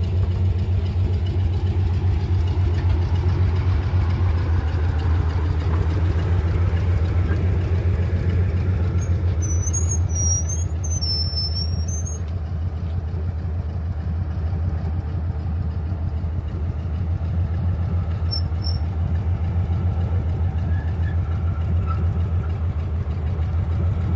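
An old forklift's engine running steadily with a low, even hum while it moves a large tire on its forks.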